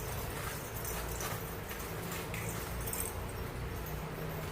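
Soft clicks and scuffs of a cat playing with a toy, over a low hum.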